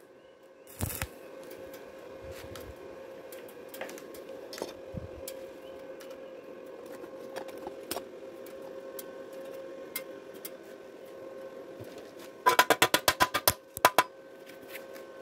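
Chipping hammer rapping fast on a fresh stick weld on thin galvanized square tube to knock off the slag: a quick run of about a dozen sharp taps in a second near the end, then a few more. Before it, a brief crackle of the welding arc about a second in, then a faint steady hum with scattered small ticks.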